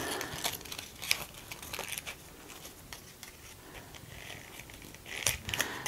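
Paper petals crinkling and rustling softly in the hands as a petal strip is wrapped and positioned around a paper rose bud, in short intermittent crackles with a slightly louder rustle near the end.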